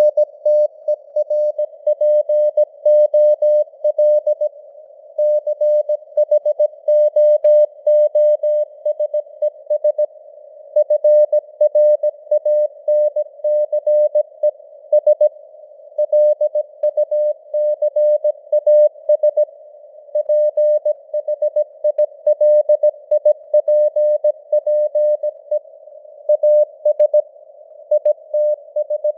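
Morse code (CW) at 17 words per minute: a single steady mid-pitched beep keyed on and off in dots and dashes, computer-generated, over a narrow band of simulated receiver hiss, with the signal strength rising and falling as simulated fading (QSB).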